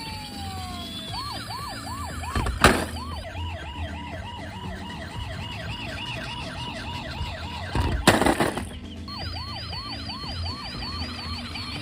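Electronic toy siren sounding a fast up-and-down wail, about four sweeps a second. Two loud bangs cut in, one about two and a half seconds in and one about eight seconds in.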